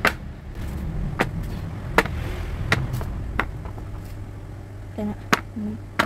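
Raw chicken feet being set down one at a time into a plastic storage container: about six sharp taps, roughly a second apart.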